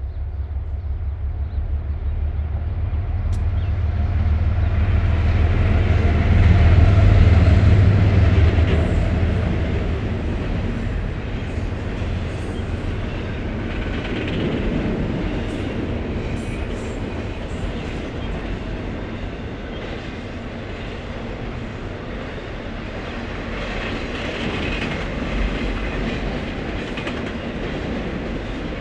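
Diesel locomotives of a double-stack intermodal freight train passing over a steel girder bridge, their engine rumble building to a peak about seven seconds in. After that the container cars roll by steadily.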